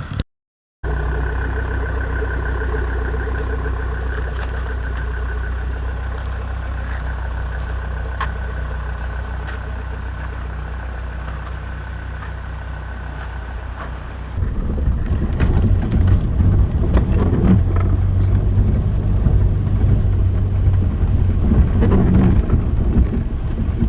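Off-road vehicle's engine running steadily, then louder and rougher from about fourteen seconds in as it works harder.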